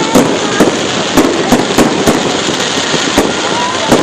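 Aerial fireworks bursting: a dense, irregular run of sharp bangs and crackling reports, several a second, over a constant din of overlapping bursts.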